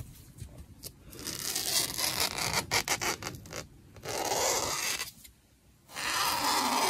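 Felt-tip marker rubbing and scratching across foam while tracing an outline, in several uneven stretches. The sound drops out completely for under a second about five seconds in.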